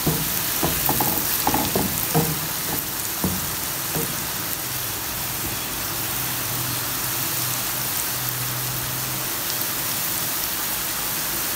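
Chopped onions sizzling steadily in hot oil in a pan, frying toward light brown. In the first few seconds a wooden spatula stirs through them, adding light scrapes and knocks against the pan.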